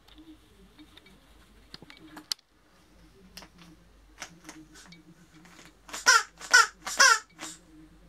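Dubbed-in squawking cries of a red macaw chick: three loud, high cries in quick succession about six seconds in and a weaker fourth just after. Before them there are only faint clicks and rustles, with one sharp click about two seconds in.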